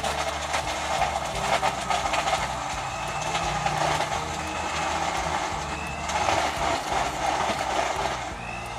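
Countertop blender running at full speed, crushing ice and blending an iced drink, with ice rattling in the jar; it winds down near the end.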